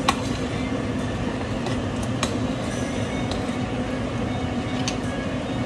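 A metal spoon stirring a stainless steel stockpot, clinking sharply against the pot a few times, over a steady mechanical hum.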